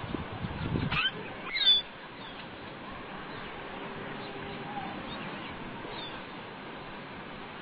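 A few short, sharp bird chirps, mostly in the first two seconds, over a steady outdoor hiss. Low rumbling thumps come in the first two seconds, then faint scattered chirps.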